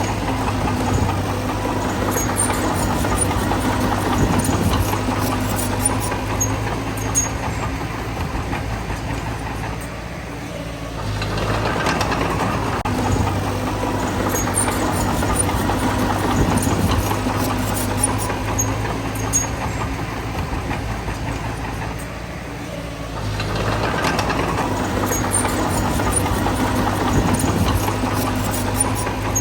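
Bulldozer's diesel engine working steadily, easing off about ten seconds in and again about twenty-two seconds in, then picking back up each time, with scattered clicks over it.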